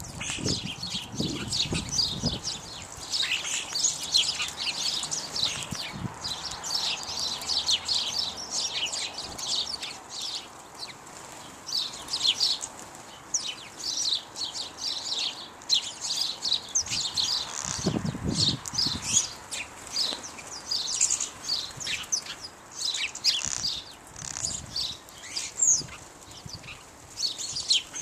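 House sparrows chirping continuously, many short cheeps overlapping. Twice, near the start and about two-thirds through, come low fluttering bursts of sparrow wingbeats at the feeder.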